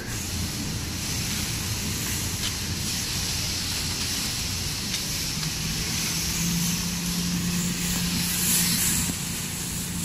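Plastic shopping bags rustling and crinkling as groceries are lifted from a trolley into a car boot, over a steady hiss of background noise. A low steady hum comes in about halfway through.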